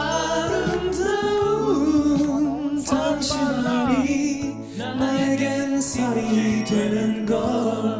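A male ballad singer sings live into a handheld microphone, holding long notes over a soft accompaniment with slow chord changes.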